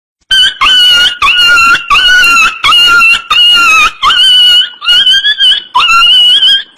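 High-pitched squeaky comic voice effect in a run of short, song-like notes, each scooping up in pitch at its start, about one or two notes a second.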